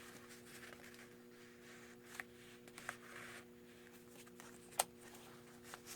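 Faint paper rustling and a few light clicks and taps as journal pages, cards and tags are handled, over a steady low electrical hum.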